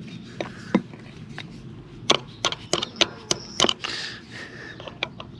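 A wrench knocking a pin into a riding mower's wheel axle: a series of sharp metal taps, scattered at first, then quicker at about three a second in the middle, driving the pin home.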